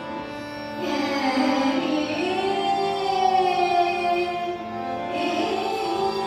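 Female Hindustani classical vocalist singing a long, gliding phrase in raga Kaushi Kanada over a steady tanpura drone. The voice enters about a second in, breaks off briefly near five seconds, and then starts the next phrase.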